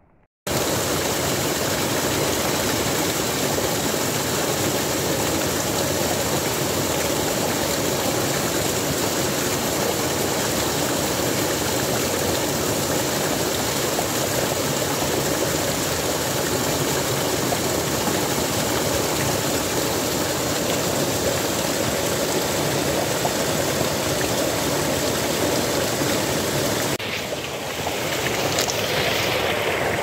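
Small waterfall pouring onto rocks: a steady rush and splash of falling water that starts abruptly about half a second in, with a brief dip and shift in the sound near the end.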